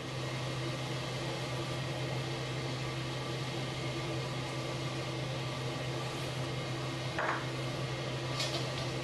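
Steady hum and hiss of a gas stove burner running on high heat under a wok, with a few light clicks near the end.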